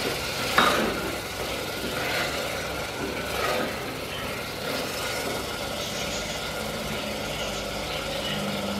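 Wooden spatula stirring and scraping potatoes and masala as they sauté in a pressure cooker pot, with a few louder scrapes in the first few seconds. Under it runs a steady motor-like hum.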